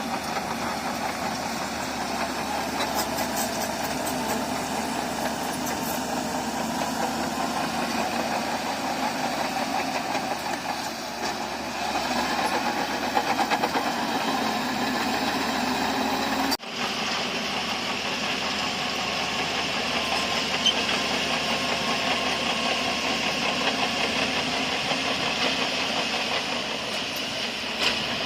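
Diesel engine of heavy earthmoving machinery running steadily. About two-thirds of the way through it cuts off suddenly and resumes with a different sound.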